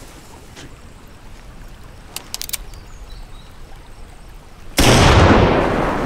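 A few short, sharp clicks about two seconds in. Then a single loud revolver shot near the end, hitting suddenly and dying away slowly in a long echoing tail.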